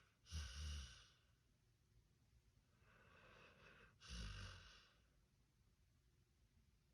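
Dog snoring softly in its sleep: two slow breaths, about half a second in and again just after four seconds in, each a faint hiss leading into a louder breath with a low buzz.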